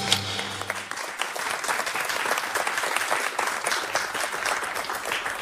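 Studio audience applauding, steady clapping throughout. The last notes of the theme music die away in the first second.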